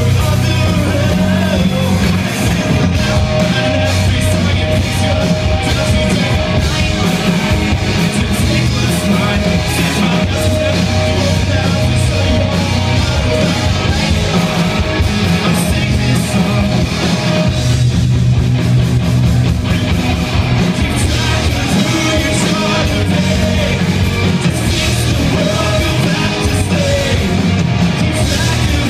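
Rock band playing live, loud and unbroken.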